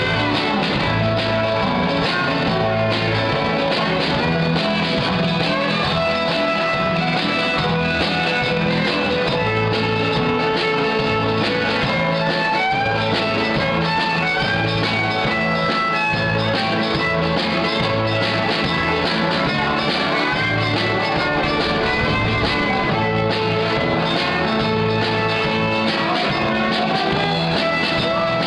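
Old-time Athabascan fiddle music from a live band, with a steady, regular bass beat under the melody.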